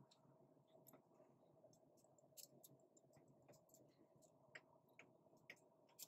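Near silence: room tone with a few faint, short clicks and ticks.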